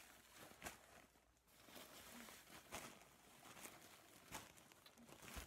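Faint rustling of a plastic bag and fluffy stuffing being handled as vacuum-packed stuffing expands out of it, with a few soft clicks.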